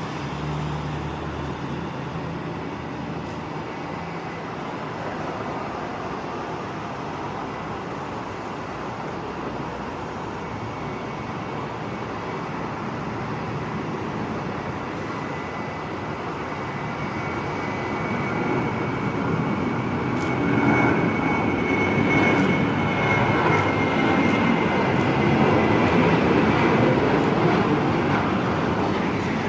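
Steady outdoor rumble, then a jet airliner's engines grow louder from about two-thirds of the way through. A thin high whine falls slowly in pitch as the jet passes.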